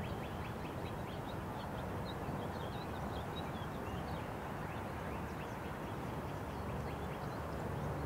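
Small birds chirping rapidly and repeatedly over a steady low rumble of the receding freight train and cars crossing the tracks.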